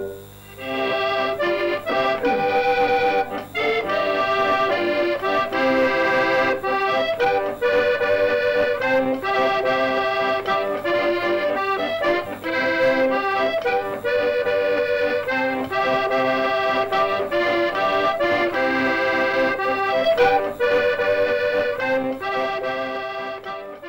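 Piano accordion playing a lively tune, melody over repeated chords, starting about half a second in and fading out near the end.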